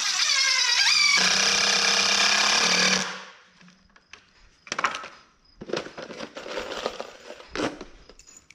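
Cordless drill driving a screw into a pine board. The motor whine rises as it spins up, then runs steadily under load for about two seconds and stops sharply. A few light knocks and rustles follow as the drill is set down and screws are handled.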